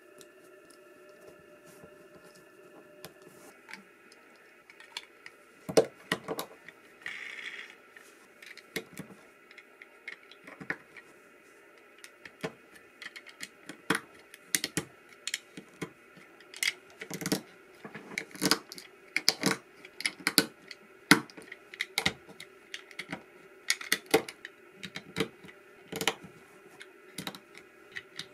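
Irregular sharp clicks and taps, starting about a quarter of the way in and growing more frequent, at times several a second, over a faint steady hum.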